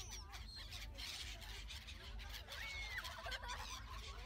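A flock of black-headed gulls calling over one another in short overlapping cries, with one longer call about two and a half seconds in, over a steady low rumble.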